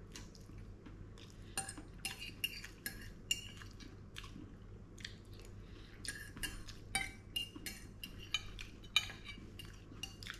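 Fork and knife clinking and scraping against a ceramic plate while food is cut and picked up, a quick irregular run of clinks starting about a second and a half in.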